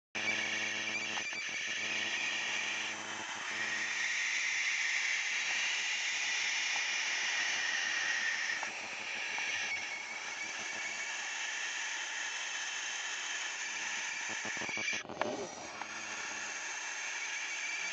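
Barn owls hissing continuously in a harsh, steady rasp, the defensive hiss of birds agitated at a person standing over their hack box. A brief knock comes about fifteen seconds in.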